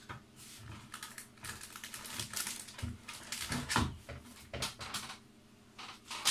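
Cardboard model-kit box and paper instruction manual being handled: irregular rustling, scraping and light knocks as the manual goes into the box and the lid is put on, with a sharper knock near the end. A faint steady hum runs underneath.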